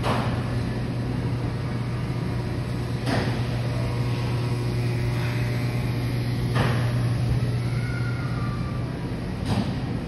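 Grocery-store room tone: a steady low hum from refrigerated display cases and ventilation, with a soft rush of noise about every three seconds.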